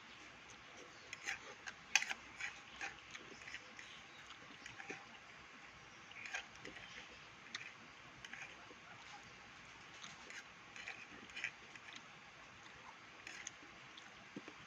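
Close mouth sounds of a person eating rice, egg and Maggi instant noodles: irregular chewing and lip-smacking clicks, loudest about two seconds in.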